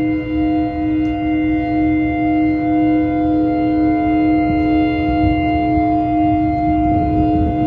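Ships' horns from several government vessels sounding together in one long unbroken blast. They form a steady chord of tones held without a break, part of a three-minute sustained horn salute. A low rumble runs underneath.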